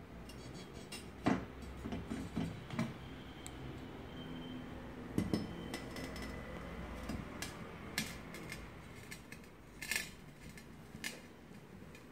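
Square porcelain jar being handled and turned over: scattered knocks and clinks of the ceramic against the surface it rests on, with sharper knocks about a second in, about five seconds in, and about ten seconds in.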